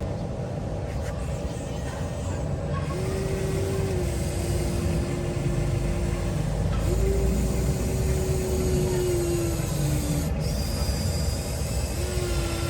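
Electric drive motors of a 1:14-scale Huina RC construction machine whining in three spurts of a few seconds each, the second sagging in pitch as it stops. A steady low rumble runs underneath.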